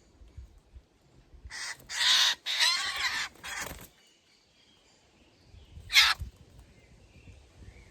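Eurasian jays giving harsh, rasping screech calls: a run of about four in quick succession, then a single loud one about six seconds in.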